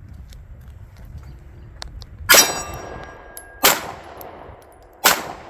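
Three 9mm pistol shots from a Girsan Regard MC, fired about a second and a half apart at a long-range steel target. A metallic ring hangs on for about a second after the first shot.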